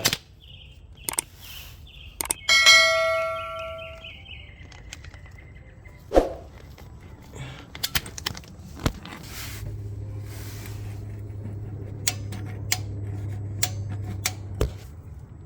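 A metal hand tool clangs and rings out loudly about two and a half seconds in, then dies away, among scattered clicks and knocks of tools on the oil filter housing bolts. A low steady hum comes in past the middle and cuts off suddenly near the end.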